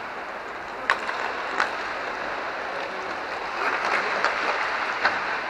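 Steady rushing hiss of an inline hockey rink in play, broken by sharp clacks of hockey sticks striking the puck, about a second in, again half a second later and near the end.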